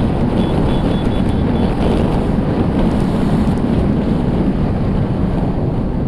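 Wind rushing over the microphone of a BMW G 310 R at highway speed, with the engine and tyre noise under it; the sound is loud and unbroken.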